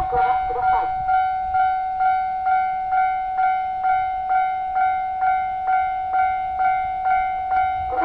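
Japanese level-crossing electronic warning bell ringing at a steady rate of a little over two strikes a second. Near the start, the crossing's recorded voice announcement speaks briefly over it.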